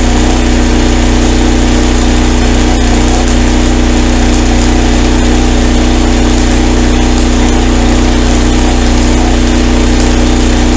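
Miller Blue Star 185 engine-driven welder's engine running steadily under weld load while a 5/32 E6011 rod is burned, with a steady hiss over the engine note.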